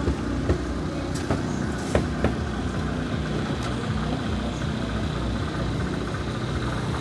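Steady low engine and traffic rumble, with a few short clicks and knocks in the first couple of seconds.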